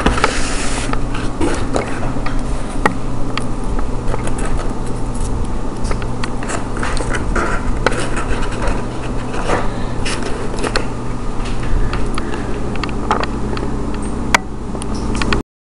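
Scraping, rubbing and scattered clicks from handling at close range over a steady low hum, with one sharp click near the end before the sound cuts off abruptly.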